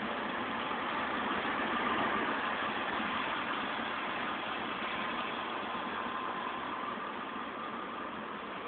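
Steady vehicle engine and road traffic noise, even and unbroken, heard through a phone's microphone.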